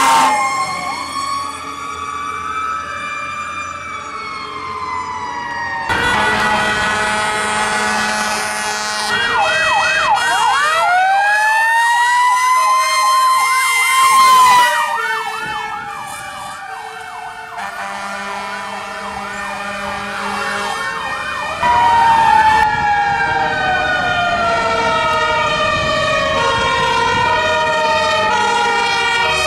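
Fire engines responding with sirens going, one after another. Electronic sirens wail and yelp, a Federal Q mechanical siren winds up and slowly coasts down, and a two-tone Martin horn alternates between two pitches.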